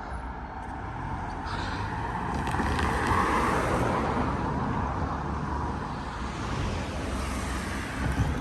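A road vehicle passing by, its noise swelling to a peak about three seconds in and then slowly fading.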